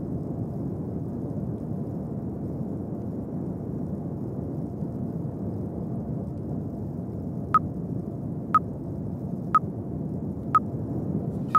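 A steady, muffled low rumble, then four short countdown-timer beeps one second apart near the end, counting down the last seconds of a rest break.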